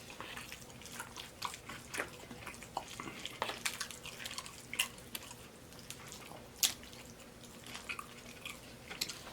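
Close-miked chewing and lip-smacking of a mouthful of taco salad: irregular small wet clicks, one sharper click about two-thirds of the way through.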